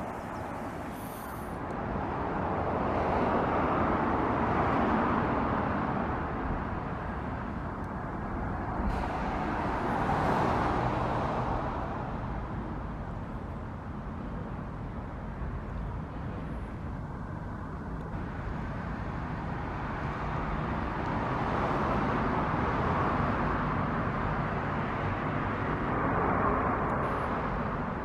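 Road traffic, vehicles passing one after another, the rushing noise swelling and fading over several seconds at a time.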